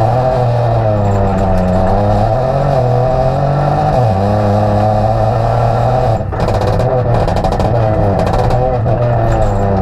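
Peugeot 208 Rally4's turbocharged 1.2-litre three-cylinder engine heard from inside the cabin, driven hard with its pitch rising and falling through throttle and gear changes. There is a brief lift about six seconds in, followed by crackling rattles as gravel strikes the car.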